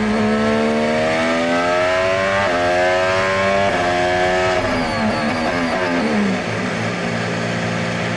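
Onboard sound of a McLaren Formula 1 car's Mercedes 1.6-litre turbocharged V6 hybrid engine. Its pitch steps with gear changes, then falls away about six seconds in and settles into a steady low drone, the car slowing onto the pit-lane speed limiter.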